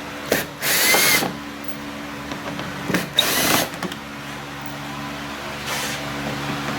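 Drill with a Torx T25 bit backing out the sheet-metal screws that hold the plastic engine undertray, in about three short whirring runs.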